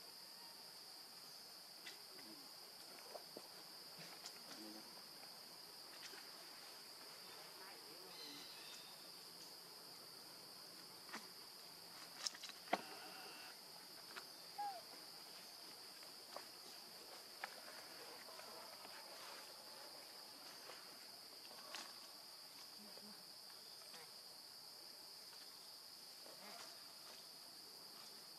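Faint, steady high-pitched buzz of insects droning in the forest, with scattered soft clicks and a few sharper clicks about twelve seconds in.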